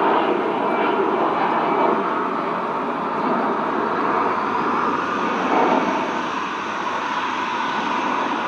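Airbus A320 jet engines running at low taxi power as the airliner rolls along a taxiway: a steady jet hum that swells briefly about five and a half seconds in and eases slightly near the end.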